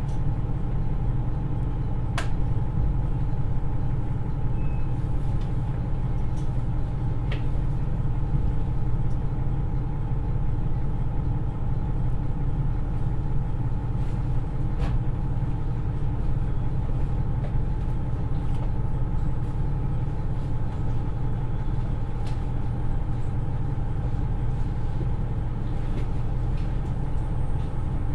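Turbocharged Niigata DMF13HZA diesel engine of a KiHa 110 railcar idling steadily while the train stands at the station, heard from inside the car, with a few faint clicks.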